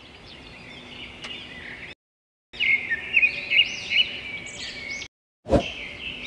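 Songbirds chirping and warbling in a busy chorus, cut off twice by a short dead silence where the recording is spliced, with a brief pop as it comes back near the end.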